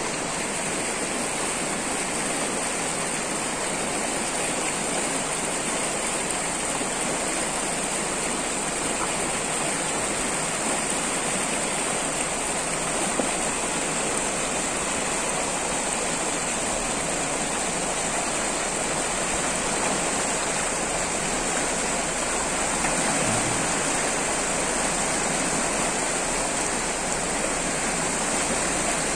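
Steady rushing of a shallow, fast mountain river over stones.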